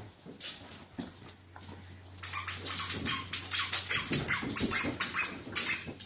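Squeaky toy blocks being worked by a dog: a rapid run of harsh, high squeaks starting about two seconds in and stopping shortly before the end.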